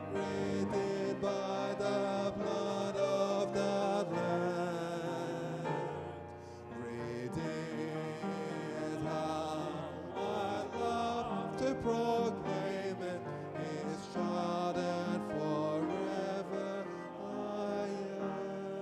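Two men singing a hymn together into handheld microphones, with musical accompaniment under their voices.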